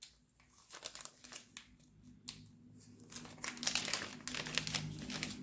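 Packaging being handled and crinkled by hand: irregular rustling that grows denser and louder past the middle.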